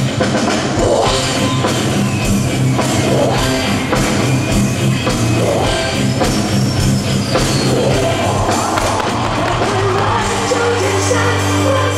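Music with a singing voice over a steady drum beat, rock-style.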